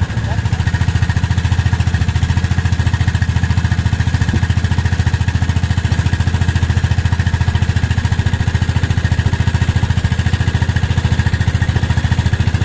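Small fishing boat's motor running steadily under way while trolling, a fast, even, low chugging with no change in speed.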